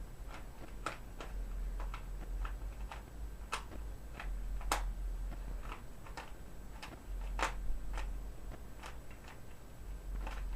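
Rubik's Cube being scrambled by hand: its plastic layers turned in quick, irregular clicks and clacks, one to three a second.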